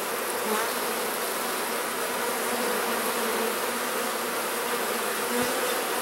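Honeybees buzzing in a steady, continuous hum around an open hive, with many bees in the air because the colony has just been released from its nuc box.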